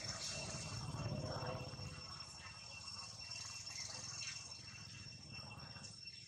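Insects trilling steadily at a high pitch, over a faint low rumble that is strongest in the first couple of seconds.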